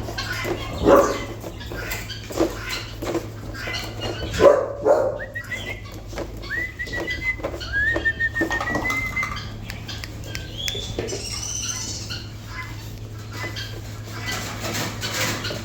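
A bull terrier and a raccoon play-fighting: scuffling and short grunts, with a run of high chirps near the middle.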